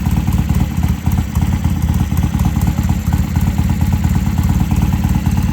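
Vintage British motorcycle engine idling steadily, a rapid, even run of exhaust pulses, running smoothly on a freshly cleaned Mikuni pilot jet.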